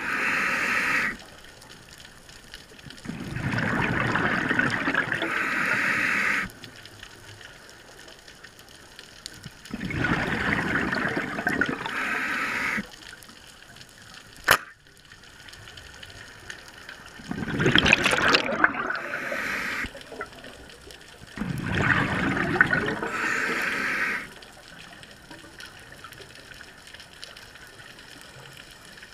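Scuba diver's regulator heard underwater: exhaled bubbles rush and gurgle out in bursts of two to three seconds, about every five to seven seconds, with quieter pauses for the in-breath between. A single sharp click about halfway through.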